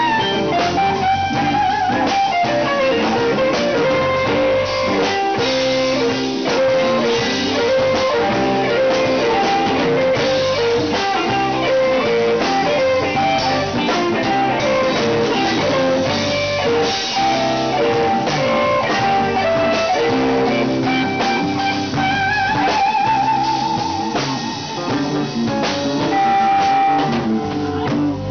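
Live blues band playing: electric guitars over a drum kit, with a lead line of sustained notes, one held note wavering with vibrato about three quarters of the way through.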